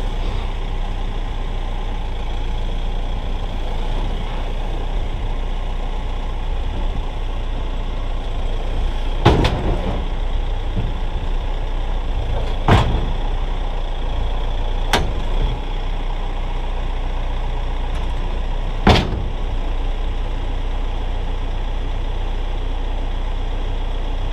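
Kioti RX7320 tractor's diesel engine running steadily as the tractor creeps up onto a steel tilt trailer. Four sharp knocks come a few seconds apart from about nine seconds in.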